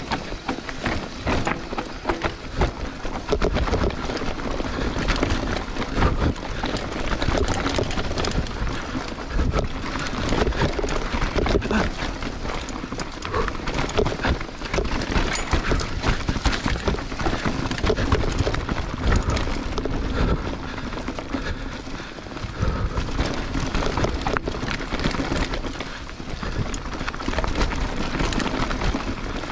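Mountain bike riding fast down a leaf-covered dirt trail: knobby tyres rolling over leaves and dirt with a steady rumble, and the bike clattering and rattling over bumps throughout.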